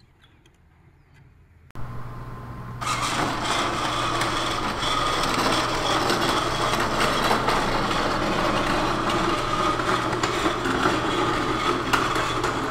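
Steady loud mechanical noise with a low hum underneath, starting suddenly about two seconds in and filling out a second later.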